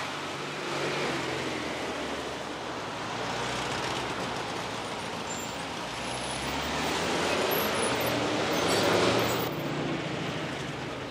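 Volkswagen Type 2 bus with its air-cooled flat-four engine running as it drives slowly along a cobbled street and pulls up, getting louder until about nine seconds in.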